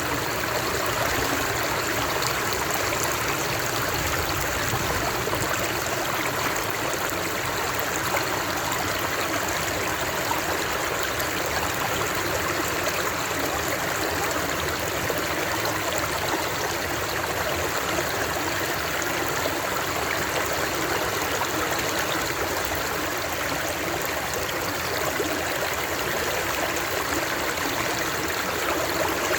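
Flowing water running steadily, an even wash of noise that does not change.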